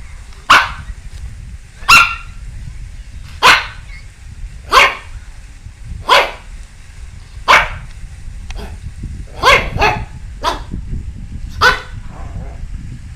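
A dog barking in single loud barks, about one every second and a half, with a quick double bark near the end, over a steady low rumble.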